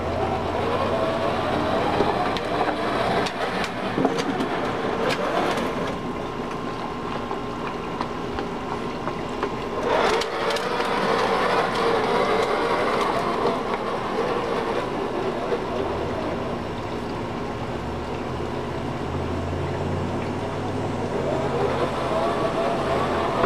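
Plastic wheels of a child's toy ride-on car rolling as it is pushed over grass and concrete, a steady rolling noise with a brief louder scrape about ten seconds in.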